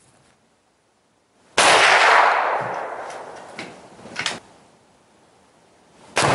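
A rifle shot about a second and a half in, its echo fading slowly over a couple of seconds, and a couple of sharp clicks. Near the end a second sudden blast begins and keeps rolling on: the Tannerite target detonating.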